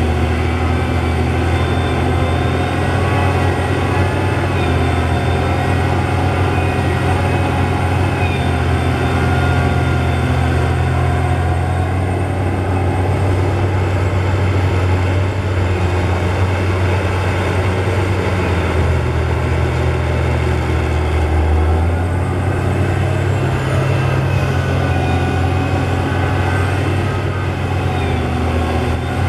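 Liebherr R984C crawler excavator's diesel engine and hydraulics working under load while digging and loading: a deep, steady engine drone with higher tones that shift as the boom and bucket move. The engine note changes about twenty seconds in.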